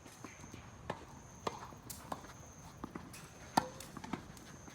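Tennis balls struck by rackets and bouncing on the court during play: a string of sharp, irregular pops, the loudest about three and a half seconds in.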